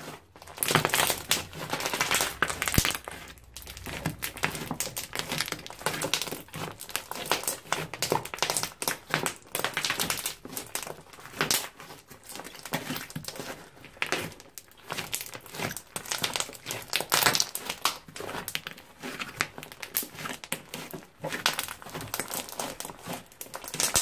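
Glossy slime being kneaded, folded and stretched by hand, with a dense, irregular run of small crackles and pops.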